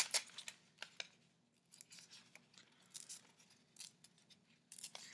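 White paper being torn by hand in small pinches along a scored line, giving faint, intermittent rips and crinkles. A louder rip comes right at the start.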